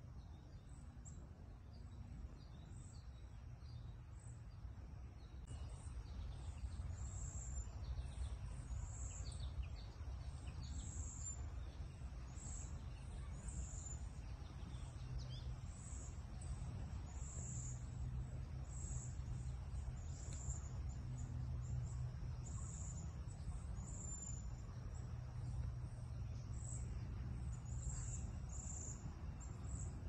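Outdoor ambience: a steady low rumble with short, high, thin chirps repeating about once a second, and a few fainter scattered chirps in the first third.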